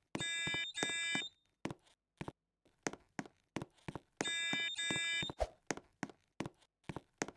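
Building fire alarm sounding: a pair of half-second electronic tones repeating about every four seconds, with a run of sharp clicks about twice a second in the gaps between the tone pairs.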